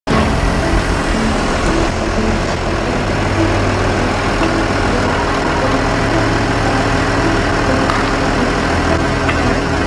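Car engine idling steadily as the car creeps forward, a constant low hum under even noise, with no distinct crunch standing out.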